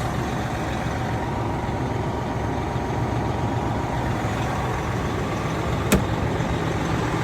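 Big-rig truck's diesel engine idling steadily, running after the failed turbo-to-exhaust-pipe clamp was replaced to check for exhaust leaks. A single sharp click comes about six seconds in.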